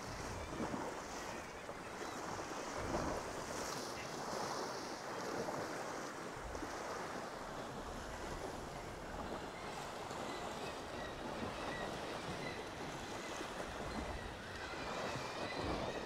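Sea swell washing against shoreline rocks, a steady surf noise.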